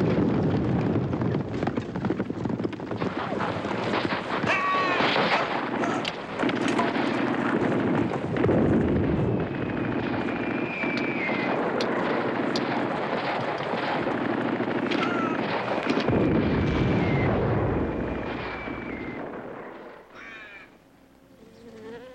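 War-scene sound effects: a dense din of gunfire and explosions with several high, slightly falling whistles. It fades out near the end, leaving crows cawing.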